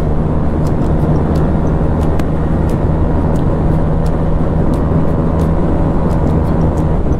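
Motorcycle engine running steadily at an even cruising speed, a constant hum with a rushing noise over it.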